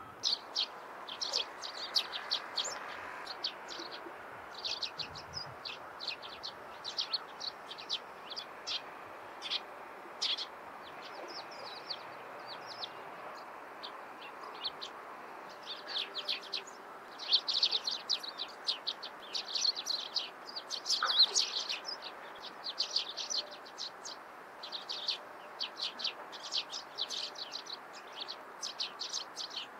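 Small songbirds chirping: many short, high notes in quick succession, densest and loudest in the second half.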